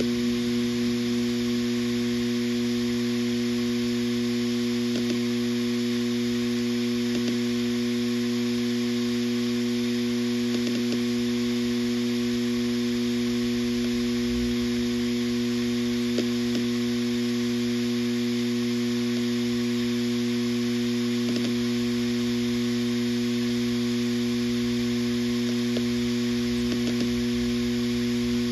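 Western Digital RE 4 TB (WD4000FYYZ) 7200 rpm hard drive spinning with a steady hum over a light hiss. A few faint clicks from the heads seeking come at irregular moments.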